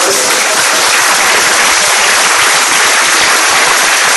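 Audience applauding, a dense and steady clapping from a large crowd.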